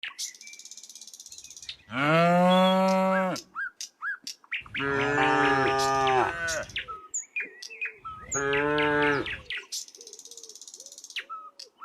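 Cattle mooing: three long moos one after another, each lasting one and a half to two and a half seconds, with small birds chirping in the gaps between them.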